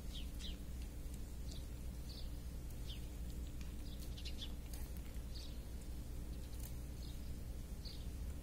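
Small birds chirping in short, high notes repeated every half second to a second, over a steady low rumble. A few faint clicks come in between.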